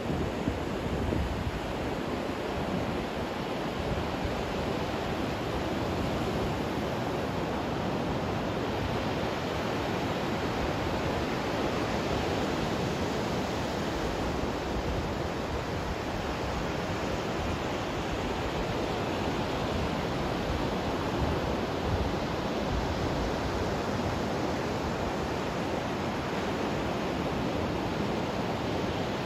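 Ocean surf breaking on a sandy beach: a steady wash of noise with no let-up.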